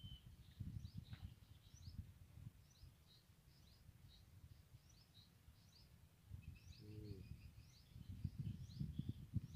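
Small birds chirping in many short, high notes, faint, over a low irregular rumble that grows louder near the end.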